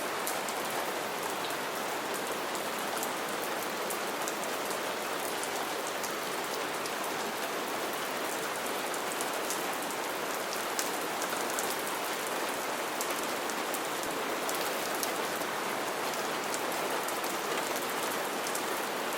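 Steady rain falling, with many small drop ticks over an even wash of noise.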